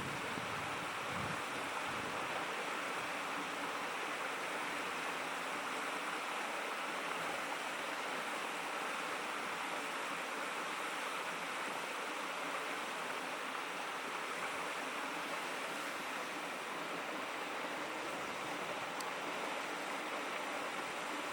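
Shallow stream babbling over stones: a steady, even rush of running water.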